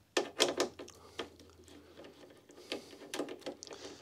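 Nuts being undone from the bolts inside a Commodore PET's metal case. There is a quick run of small metallic clicks in the first half second, then scattered clicks and taps of tool and metal.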